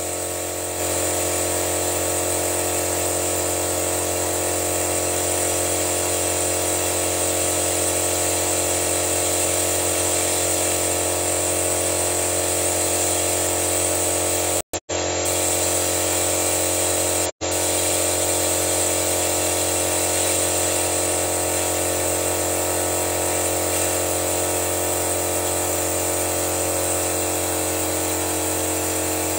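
Air-driven vacuum extractor running steadily: compressed air hissing through it while dirty oil and flushing fluid are sucked out of the engine into its clear canister, over a steady hum. It gets louder about a second in and cuts out twice, briefly, around the middle.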